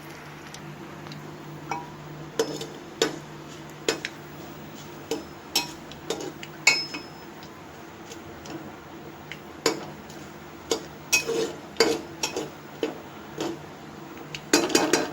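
Metal spoon clinking and knocking against a pressure cooker pot, with irregular strikes while stirring a tempering of cumin, mustard seeds and curry leaves in hot oil, and a quick run of clinks near the end, over a faint steady hum.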